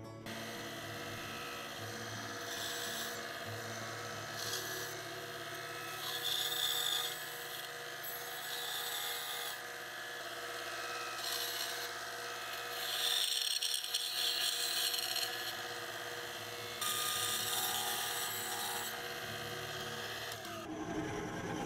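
Bandsaw running steadily, its blade cutting a small wooden lure blank in a series of short passes. The cuts come as separate bursts over the saw's steady running.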